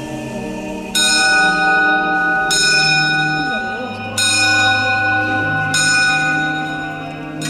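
Four bell strikes about a second and a half apart, each ringing on, over background music with slow held low notes.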